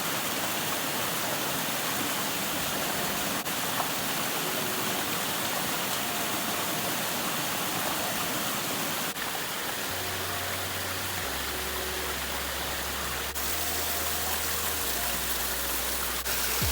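Water pouring down a small monsoon-fed waterfall, a steady even rush. About ten seconds in, low steady bass tones that change pitch every second or two come in under it.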